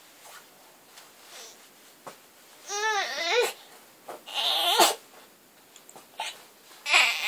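Baby babbling: short high vocal sounds, with a wavering, warbling one about three seconds in, a breathier one a second later and another starting near the end.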